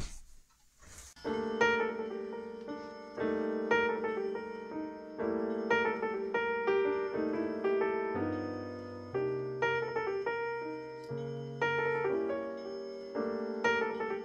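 Background piano music with a gently rhythmic accompaniment, starting about a second in after a brief noise.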